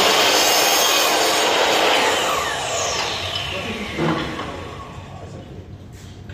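Makita miter saw cutting a length of U-channel. The blade then winds down with a falling whine about two seconds in, and there is a short knock about four seconds in.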